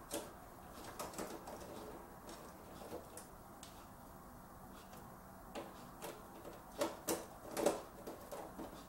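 A screwdriver and small screws clicking and scraping against the metal expansion-slot bracket of a PC case while a graphics card is screwed down. There are scattered light clicks, with a few louder ones about seven seconds in.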